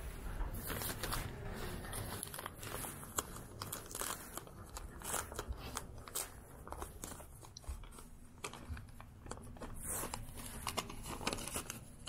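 Paper envelope being opened and handled, with irregular crinkling and rustling of paper throughout.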